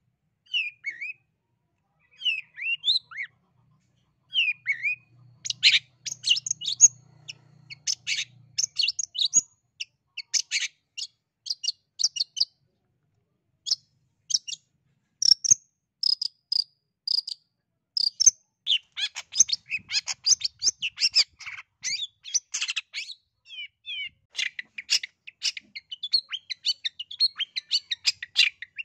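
Long-tailed shrike (cendet) singing a long, varied song of rapid chattering and short high notes. It starts with a few scattered short calls, then turns into dense bursts of chatter with brief pauses between them.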